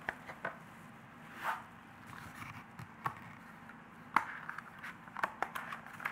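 PVC-covered cardboard pieces being handled and folded together: light scraping and rustling with a few sharp clicks and taps, the loudest about four seconds in.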